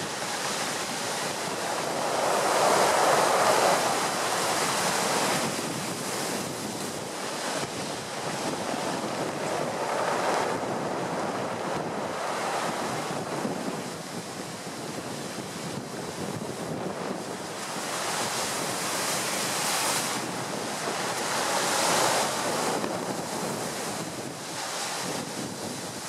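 Heavy storm surf at high tide crashing against a sea wall and wooden groynes, with shingle shooshing in the wash and strong wind buffeting the microphone. The surge swells and falls back in waves, loudest about three seconds in and again around ten and twenty-two seconds.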